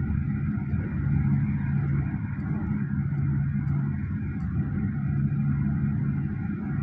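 Hyundai Staria van driving at speed, heard from inside the cabin: a steady hum of engine and tyre noise with an even low drone.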